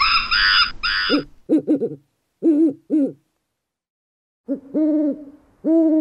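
Siamang gibbon calling with a run of loud, high, rising-and-falling whoops that stop about a second and a half in. Deeper hooting calls follow in two groups with a short silence between them.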